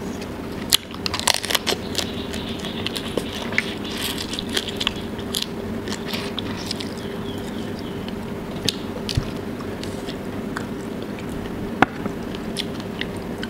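Close-up chewing and crunching of cooked tiger prawns, shell and meat, with sharp crackly bites and wet mouth clicks. The crunching is thickest in the first few seconds, then comes in scattered bites.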